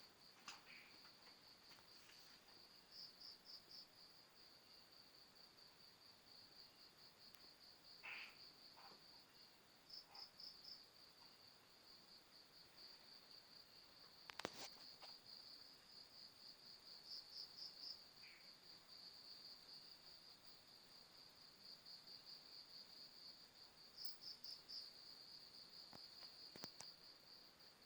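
Crickets chirping faintly in a steady high trill, with louder pulsing stretches every few seconds. A single sharp click comes about halfway through.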